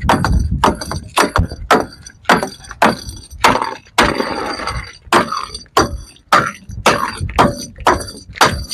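Glass bottles struck again and again, about two to three knocks a second, each knock followed by a short high ring from the glass.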